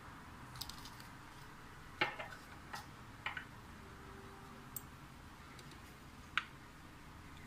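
A few light, scattered clicks and taps from handling the glass vanilla bottle and a metal spoon, with the sharpest click about two seconds in and another near the end.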